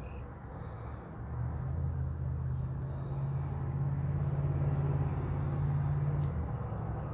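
A vehicle engine's low, steady hum that builds about a second in and eases off near the end.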